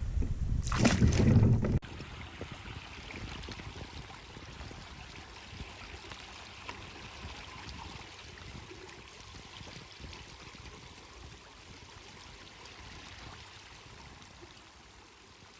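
Wind rumbling on the microphone for about two seconds, then, after an abrupt cut, a faint, even wash of water and wind that slowly fades out.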